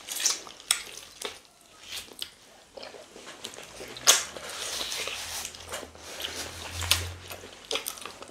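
Close-up eating sounds of fufu with slimy ogbono soup eaten by hand: wet chewing, lip smacks and finger sucking, with scattered sharp smacks, the loudest about four seconds in.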